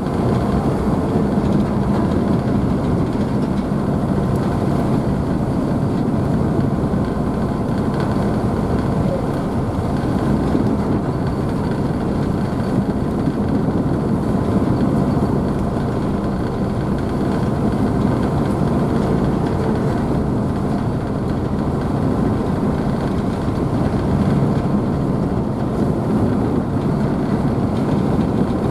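Car ferry's engines running steadily, a low even hum, over the constant rush of the wake and wave spray behind the stern.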